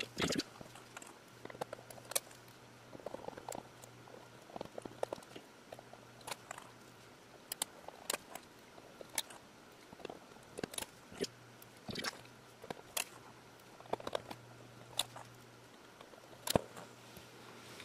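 Small metallic clicks and taps from a hard drive's top cover being set in place and its screws driven in with a Torx screwdriver, one short click after another with pauses between, over a faint steady hum.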